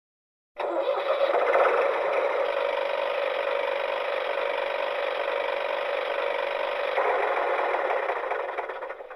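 Tractor engine running steadily with a rattly, clattering tone. It starts abruptly after a moment of silence, shifts slightly about seven seconds in, and fades out near the end.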